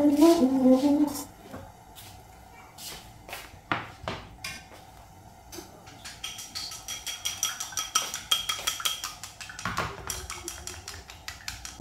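Kitchen cookware handling around a gas stove: scattered clicks and knocks, then a fast, even ticking for a few seconds from about six seconds in. A brief voice is heard at the very start.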